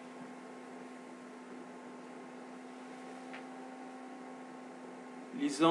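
Steady electrical hum with faint hiss, the background noise of the recording between speakers.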